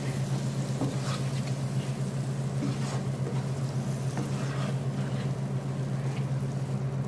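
A wooden spatula stirring tomatoes and masala in a nonstick frying pan, with a few short scrapes against the pan over a faint sizzle. A steady low hum is the loudest sound.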